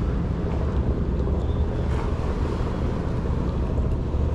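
Steady low rumble of wind on the microphone mixed with boat motor noise on the water.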